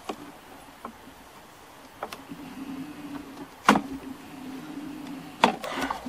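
A honey bee buzzing close by, a steady hum that comes and goes, over sharp wooden knocks and clunks of hive boxes and frames being handled. The loudest knock comes about two-thirds of the way in, with a few more near the end as a hive box is lifted.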